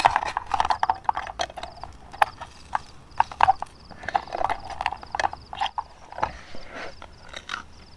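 Metal spoon scraping and clinking against a stainless steel camping pan while turning and pressing pieces of batter cooking in the pan with no oil: an irregular run of short scrapes and taps.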